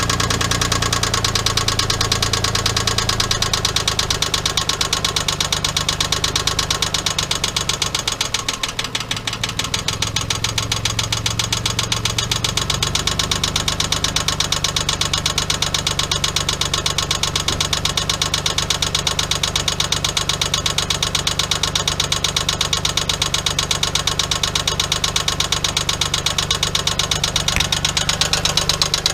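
1997 Geo Metro 1.0 L three-cylinder engine idling with a fast, steady knock, the sign of a spun rod bearing. The running sags briefly about nine seconds in, then picks up again.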